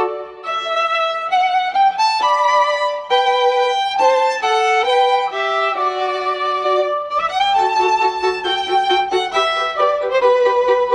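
Instrumental background music: a melody of held and changing notes, with an upward slide about seven seconds in.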